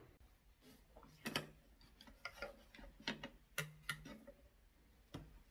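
A handful of light, sharp clicks and taps at irregular intervals as hands handle a disposable glove and tableware.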